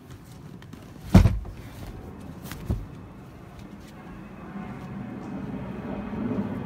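Hinged seat-storage lid on a fibreglass boat dropping shut with a loud thump about a second in, followed by a lighter knock a second and a half later.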